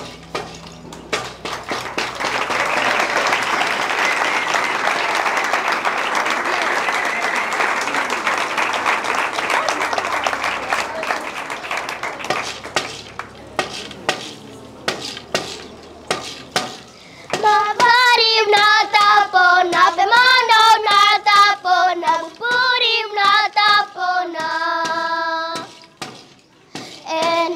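Audience applauding for several seconds, tailing off into scattered claps and knocks. About two-thirds of the way in, a group of children starts singing together in unison, a chant in short phrases with a brief pause near the end.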